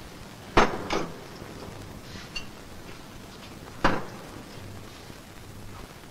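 Crockery knocking on a table as soup bowls and plates are set down: two clinks in quick succession about half a second in, and another about four seconds in.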